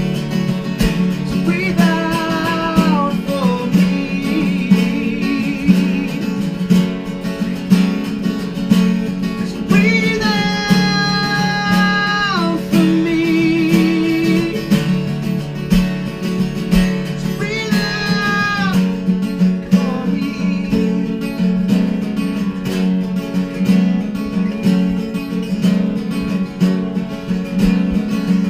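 Acoustic Americana band playing unplugged: steadily strummed acoustic guitar, with three long held melody notes above it, each sliding down at its end.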